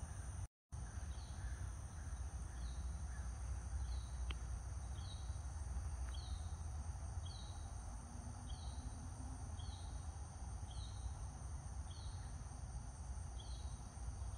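Outdoor ambience: a short falling chirp repeating about once a second over a steady high insect drone and a low rumble. The sound cuts out completely for a moment about half a second in.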